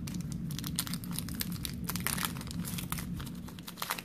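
Foil wrapper of a Pokémon Guardians Rising booster pack crinkling and tearing open in the hands, a dense run of small irregular crackles.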